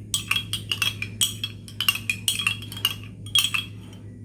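A spoon stirring honey into a drink, clinking rapidly and irregularly against the cup, then stopping shortly before the end; a low steady hum runs underneath.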